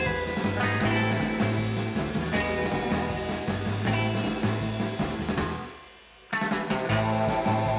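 Rock music with guitar. It fades out about five and a half seconds in, and another passage starts abruptly a moment later.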